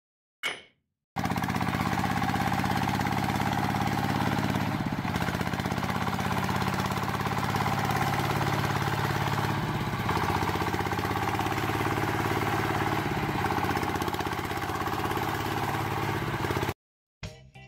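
A brief knock about half a second in. Then a small engine's steady running comes in abruptly and holds one even speed, cutting off suddenly near the end.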